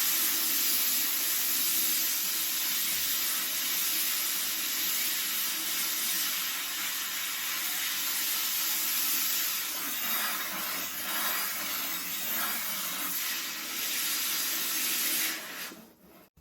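The foot of a glaze-fired pot being ground wet on a medium-grit diamond disc spinning on a potter's wheel: a steady, gritty hiss that stops suddenly near the end.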